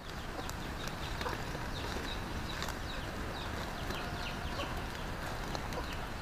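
Fresh coconut-leaf strips rustling and clicking as they are woven by hand into a basket. Underneath is a steady outdoor background hiss, with a run of short, high, falling chirps through the middle.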